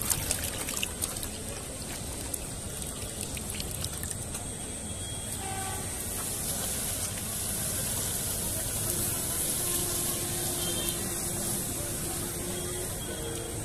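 Water running and splashing steadily, with a few sharp clicks in the first second.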